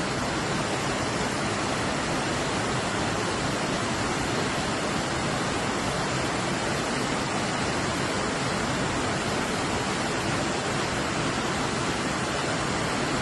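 Steady rushing of a flooded river in spate, with water pouring over a riverside wall.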